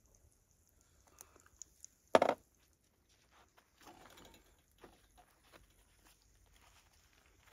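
Hands making a sandwich on a wooden cutting board: a few light clicks, a single sharp knock about two seconds in, then the crusty bread roll crackling softly as it is pressed shut and lifted.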